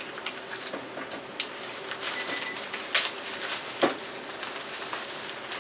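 Packaging wrapper being pulled and torn off a large maple burl: irregular crinkling and rustling with sharp crackles, the loudest about three and four seconds in.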